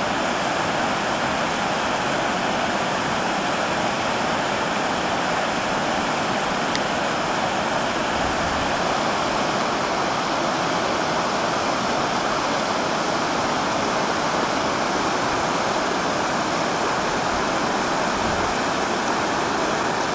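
Mountain river rushing over rocks and rapids: a steady, even rush of water.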